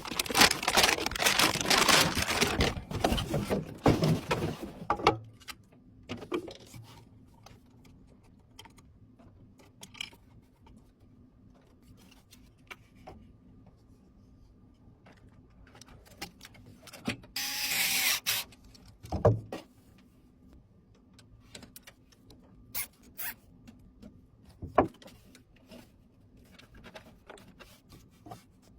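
Hand handling of computer parts and packaging: several seconds of rustling and rubbing at the start, then scattered small clicks and taps, a brief rustle past the middle followed by a soft thump.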